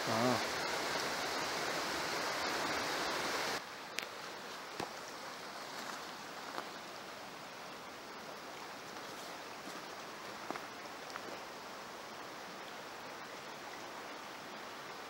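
Steady rush of a mountain stream, cutting off suddenly about three and a half seconds in to a fainter steady hiss with a few scattered clicks.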